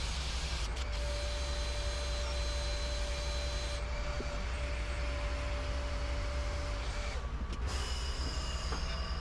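Household vacuum cleaner used as a shop vac, running steadily with a low hum and a whir, its higher hiss dropping out briefly a few times.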